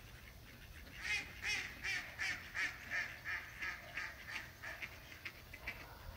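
Mallard ducks quacking: a rapid series of calls, about three a second, loudest at first and then tapering off.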